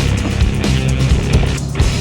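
Loud, up-tempo rock background music with a driving beat, distorted guitar and bass.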